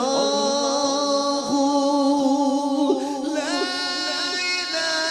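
A man singing a naat, holding long notes with gliding ornaments and sliding up into a higher note about three seconds in.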